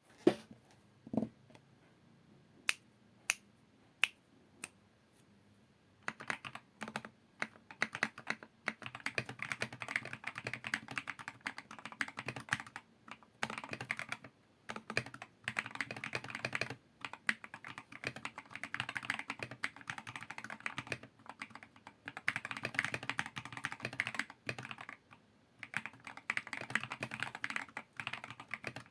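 Typing on a Redragon Fizz mechanical keyboard with lubed Akko Matcha Green switches, XDA keycaps and foam-dampened case. A few separate clicks at first, then steady fast typing from about six seconds in, with brief pauses.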